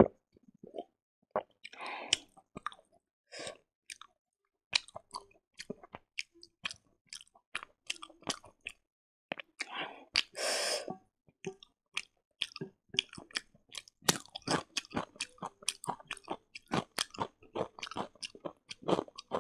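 Close-miked mouth sounds of a person chewing pork and rice: a quick run of wet smacks and clicks. A longer squelchy rustle comes about ten seconds in as fingers mash rice and curry on the plate.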